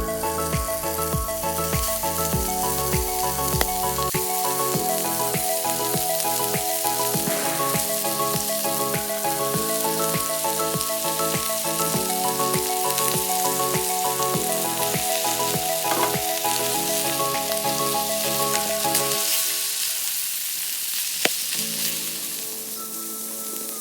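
Food sizzling as it fries in a hot pan, a steady hiss. Gentle instrumental background music plays over it, its bass dropping out near the end.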